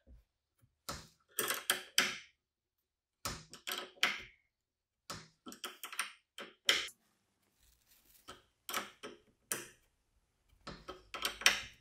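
Small metal clicks and taps of a spanner turning and being repositioned on a nut, in irregular clusters of a few clicks each, as the nut is tightened on a bolt to crush and set a rivet nut.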